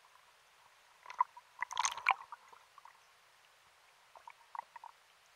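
Water gurgling and bubbling against an underwater camera housing just below the surface: faint scattered gurgles and clicks, bunched about a second or two in and again near the end.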